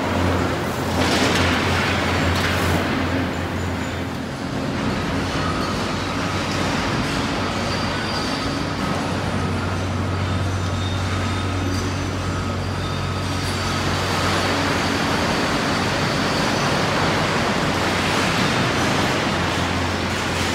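Tracked hydraulic excavator demolishing concrete: its diesel engine runs steadily under a continuous noise of concrete and debris being broken and dragged. The debris noise is heavier about a second in and again near the end.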